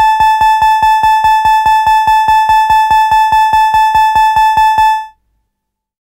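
Electronic gong, a specially created synthesized sound: one high, steady-pitched tone re-struck rapidly, about five strikes a second, stopping abruptly about five seconds in.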